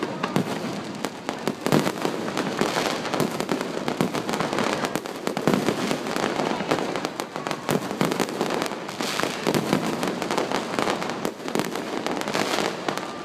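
Fireworks display: a dense, continuous barrage of bangs and crackling, many reports a second.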